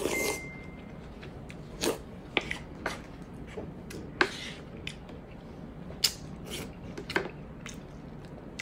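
Close-miked eating of pork hock in mung bean and coconut-milk soup: a slurped spoonful at the start, then chewing, with sharp clicks of utensils against the dish now and then.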